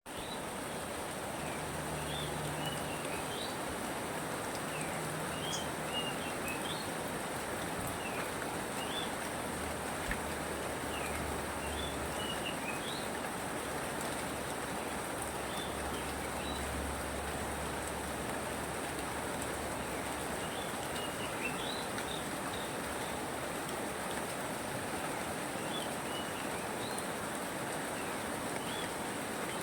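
Steady rain falling, with short bird chirps scattered through it.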